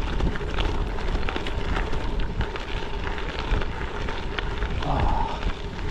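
Gravel bike tyres rolling over a gravel road: a steady crunch full of small stone clicks, over wind rumble on the microphone.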